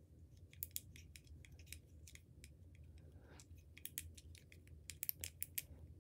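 Faint clicking of the push buttons on a handheld game-controller fidget toy: scattered single clicks at first, then a quicker run of clicks in the last two seconds.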